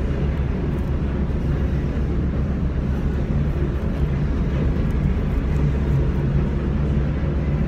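Steady low engine drone, an even hum with no rise or fall.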